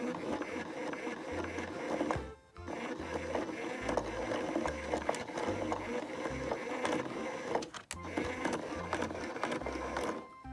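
Background music over the whir of a small electric motor, likely a motorized cat toy running, with short breaks where the sound cuts off.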